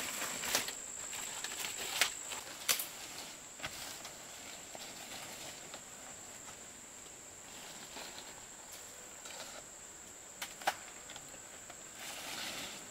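Insects chirring in a steady high drone, with a handful of sharp clicks and knocks, mostly in the first few seconds and once more later, and a brief swell of rustling noise near the end.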